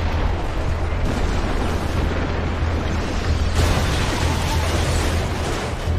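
Anime sound effect of a gigantic explosion, the Colossal Titan's transformation blast: a continuous deep rumbling blast, with a fresh surge about three and a half seconds in.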